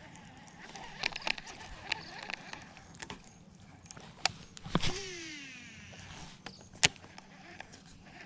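Baitcasting reel being cast: a few light clicks from the reel, then a whoosh of the cast about halfway through and a whine falling in pitch as the free-spinning spool pays out line and slows. About two seconds later comes a single sharp click.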